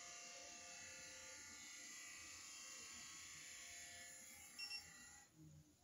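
Dental LED curing light running with a faint, steady whirring hum while it sets the adhesive under the brackets. Near the end it gives two short, high beeps, marking the end of its timed cure, and the hum stops right after.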